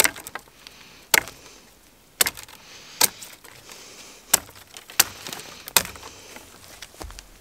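Large carbon-steel bushcraft knife slashing through thin dry bush stems: a series of about seven sharp cracks, roughly one a second, stopping about six seconds in.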